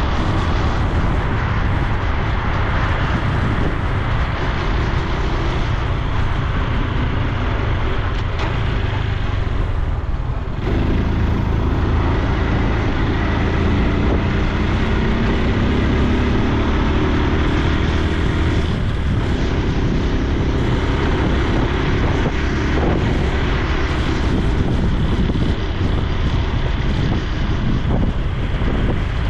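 Honda Super Cub C125's single-cylinder four-stroke engine and exhaust running while riding, with wind noise on the microphone. The engine eases off briefly about ten seconds in, then its note rises as the bike accelerates.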